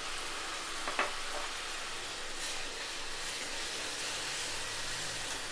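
Tomato paste sizzling as it fries in hot mustard oil and spices in a metal kadhai, being stirred with a spoon; a single light knock about a second in.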